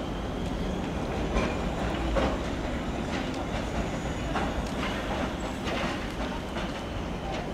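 Electric train rolling past with a steady rumble, its wheels clicking over track joints at uneven intervals, roughly once a second.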